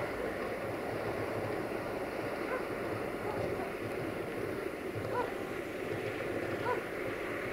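Distant 060-DA (LDE2100) diesel-electric locomotive's Sulzer engine running under load as it hauls a container train, a steady low rumble. A few brief faint chirps come about five and seven seconds in.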